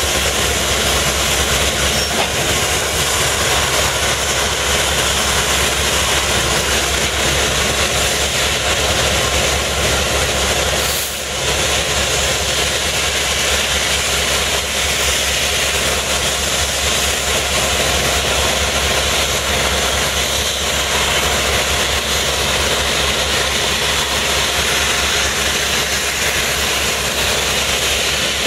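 Diesel locomotive engine idling steadily while it is turned on a turntable, with one brief dip about eleven seconds in.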